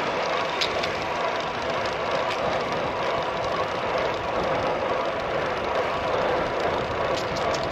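Steady rush of wind and road noise from a road bike riding at speed on the flat, its 28 mm tubeless tyres rolling on tarmac, with a few faint ticks.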